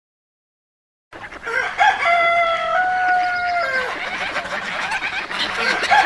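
Silence for about the first second, then a rooster crows once: a long pitched call that steps up midway and drops at the end, over a noisy background. A second crow begins right at the end.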